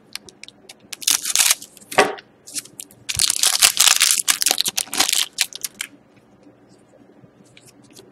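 Foil wrapper of a trading-card pack being torn open and crumpled, crackling in bursts that are loudest from about three to six seconds in. After that the crackling stops and only faint clicks remain.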